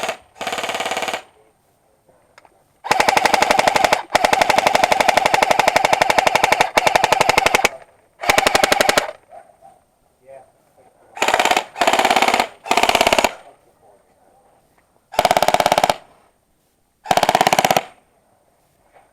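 Airsoft rifle firing on full auto: about ten bursts of rapid, evenly spaced shots, a few long strings near the start and shorter bursts of under a second later on.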